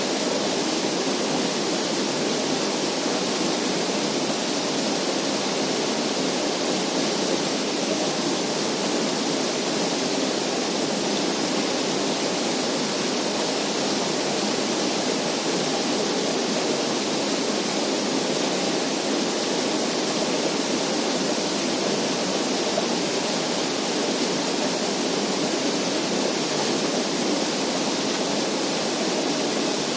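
Steady, even rushing of water, with no breaks or separate sounds.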